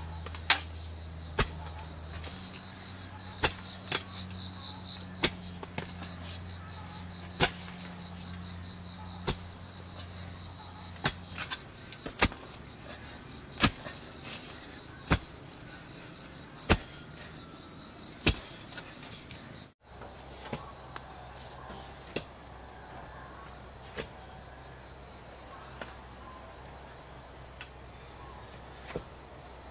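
Steady chorus of crickets chirping, with sharp knocks every second or two that come in a fast run for several seconds in the middle.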